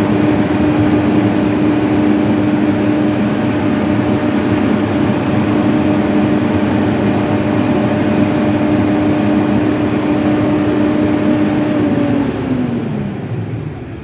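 Fortuner 100 kVA silent diesel generator set running steadily, then shutting down about twelve seconds in after its Stop button is pressed: the hum falls in pitch and fades as the engine runs down.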